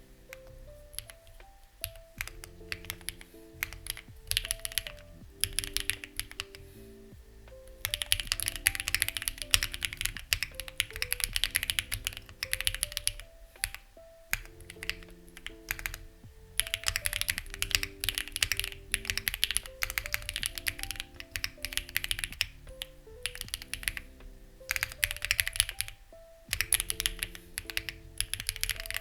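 Typing on a Lucky65 v2 mechanical keyboard with stock, unlubricated HMX Ziwei switches and CMK-style keycaps: scattered keystrokes at first, then fast continuous typing from about eight seconds in, broken by a few short pauses. Soft background music plays underneath.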